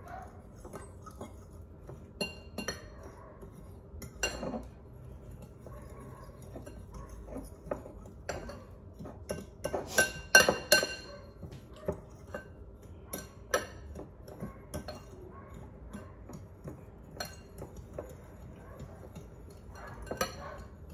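A spoon clinking and tapping against a bowl as dry seasonings are stirred together. The taps come at an irregular pace, and a few louder, ringing clinks come about halfway through.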